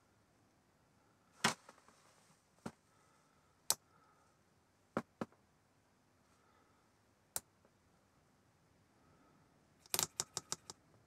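Metal tips of multimeter test probes tapping together as the leads are shorted to check for a near-zero resistance reading: a few separate sharp clicks, then a quick run of about six taps near the end.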